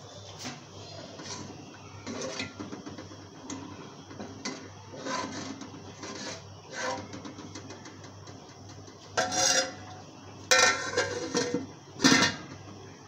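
A steel ladle scrapes and clinks against the sides and bottom of an aluminium pot as dal is stirred. It is followed by several loud metal clanks near the end as the aluminium lid is handled and set on the pot.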